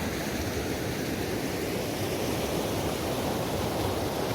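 Rain-swollen mountain stream rushing fast, a steady even roar of water.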